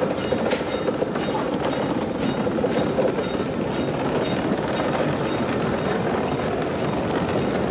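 Opicina tramway car running along its track: a steady rolling rumble with a regular clicking of the wheels, about two or three clicks a second.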